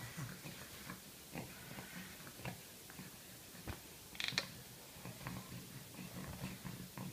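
Faint handling sounds of hands rubbing moisturizer onto a baby's skin on a towel, with scattered light clicks and a short high squeak about four seconds in.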